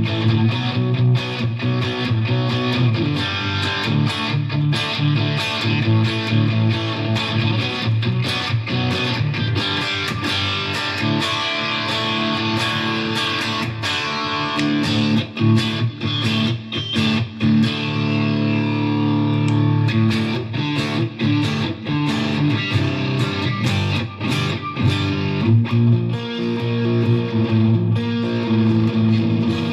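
Electric guitar, a Fender Stratocaster, played through a Fender Mustang GTX100 modelling amp on its 'hair metal' preset: a distorted rock tone with a busy run of picked notes and sustained chords.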